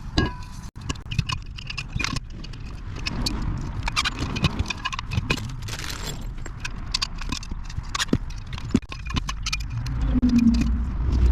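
Storage rack parts clinking and rattling irregularly as they are handled and set in place.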